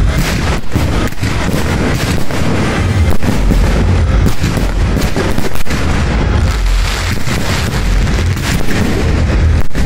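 Aerial fireworks shells bursting in a rapid, continuous barrage of booms, overlapping with no pause.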